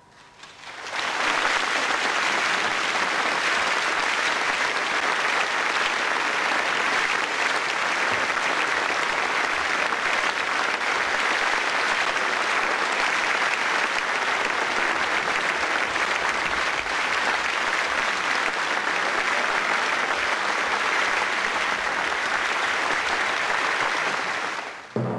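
Concert audience applauding steadily. It swells up about a second in and cuts off abruptly just before the end.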